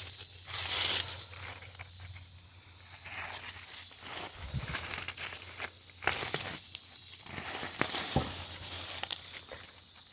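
Leafy vines and weeds rustling and crackling in irregular bursts as they are pulled up by hand, with a steady high insect chirring behind.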